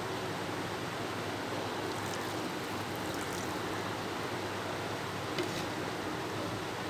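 Steady rushing noise with a few faint, brief clicks.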